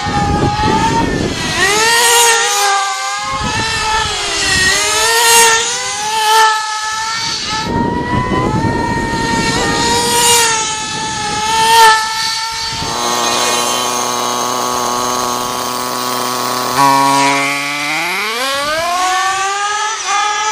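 Nitro RC buggy engines screaming at high revs, pitch swooping up and down with the throttle as the buggies race past. About thirteen seconds in one engine holds a steady note for a few seconds, then climbs in pitch as it accelerates again.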